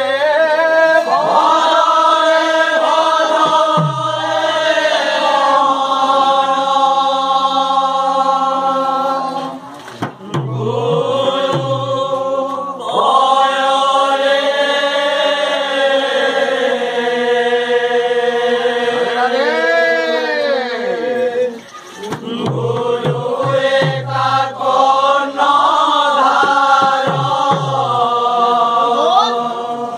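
A group of men singing a devotional kirtan chant together in long, held lines, with short breaks about ten seconds in and again just past twenty seconds, where a few drum strokes are heard.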